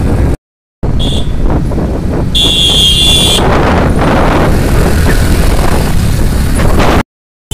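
Wind buffeting the microphone over the running of a moving two-wheeler and street traffic, with two short high-pitched steady tones, one about a second in and a longer one near the middle. The sound cuts out completely twice, briefly.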